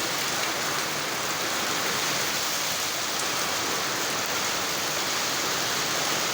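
Rain falling steadily: an even, unbroken hiss of water.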